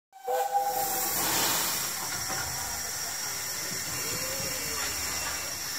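Narrow-gauge steam locomotive standing at a station, steam hissing steadily.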